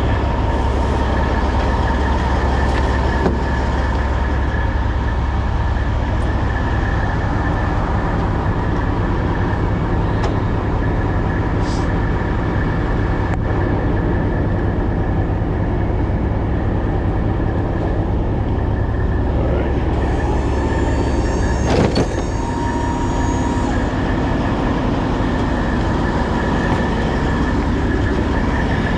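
Heavy diesel engines idling steadily: a constant low rumble with a steady high whine over it. One sharp knock about 22 seconds in.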